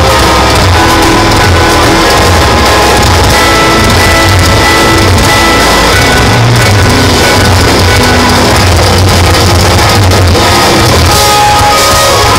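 Live instrumental progressive metal from two eight-string electric guitars and a drum kit, with heavy, pulsing low end and a high note held for several seconds in the middle. It is loud throughout.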